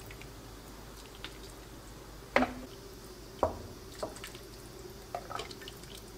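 Soup being ladled from a pot into a bowl: broth dripping and splashing, the two loudest drops about two and a half and three and a half seconds in.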